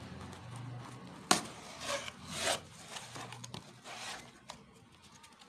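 Cardboard courier box being torn and pulled open by hand: cardboard rubbing and scraping, with a sharp snap a little over a second in and short ripping scrapes about a second later.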